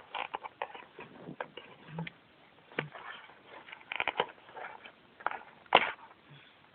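Packaging being handled and opened: irregular crinkling, rustling and small clicks, with one sharper crackle about six seconds in.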